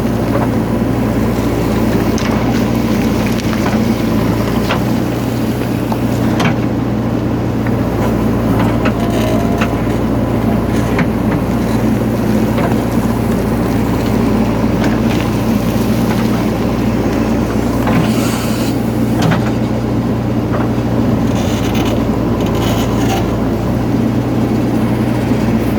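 Diesel engine of a JCB 3DX backhoe loader running steadily under load while it moves soil, with scattered short knocks and scrapes from the bucket and earth.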